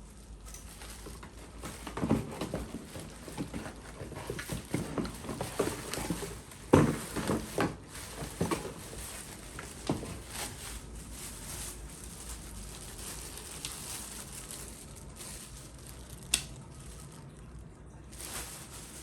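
Rustling and light knocks of packaging and parts being handled, in irregular clusters through the first half, then one sharp click later on.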